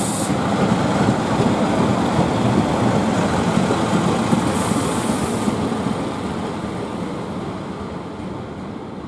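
Diesel multiple unit with a Class 142 Pacer at the rear pulling away. Its engines and wheels make a steady rumble that fades as the train recedes, with a brief hiss about five seconds in.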